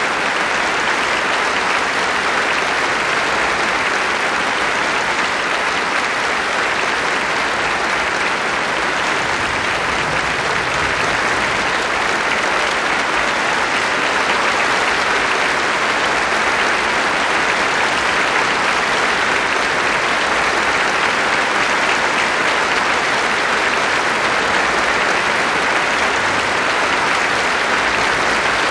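Large concert-hall audience applauding steadily, a dense, even clatter of many hands clapping.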